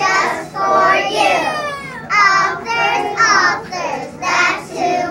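A group of young children singing a song together, in phrases of about a second each.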